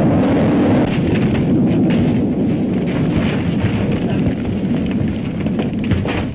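A loud, continuous rumbling roar on an old film soundtrack, ending abruptly at the end.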